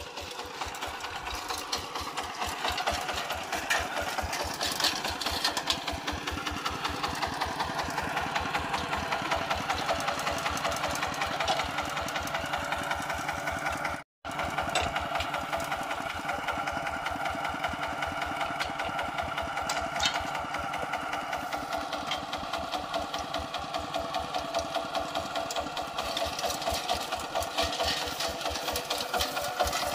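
Single-cylinder diesel engine of a two-wheel walking tractor running steadily with a rapid, even firing beat. The sound drops out for a moment about halfway.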